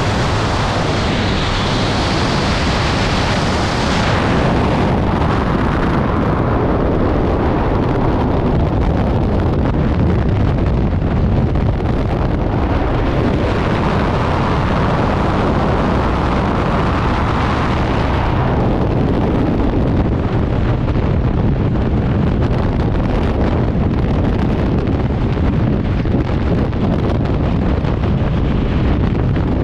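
Skydiving freefall wind rushing and buffeting over a camera microphone, loud and unbroken.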